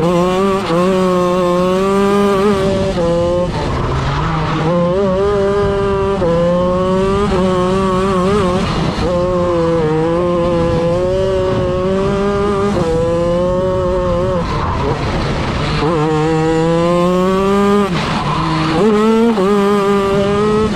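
Racing kart engine at full throttle, rising in pitch over a second or two and then dropping off as the throttle lifts, again and again.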